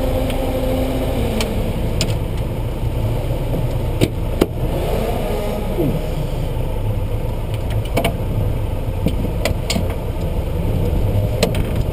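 Lotus Exige Cup 260's supercharged 1.8-litre four-cylinder engine running steadily at low revs, heard from inside the cabin. There are a few sharp clicks.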